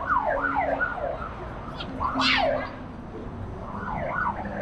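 Gulls calling overhead: a series of short, falling cries, one louder and higher about two seconds in, over steady street noise.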